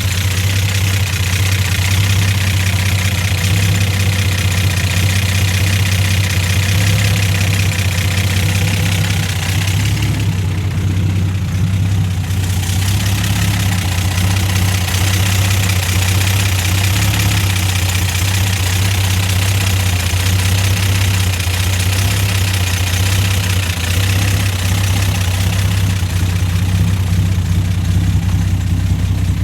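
Datsun 260Z's L26 inline-six engine running steadily at an even speed, a strong low hum with hiss above it.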